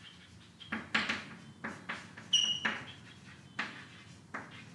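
Chalk writing on a chalkboard: a string of short taps and scratchy strokes as letters are formed, with a brief high squeak from the chalk about halfway through.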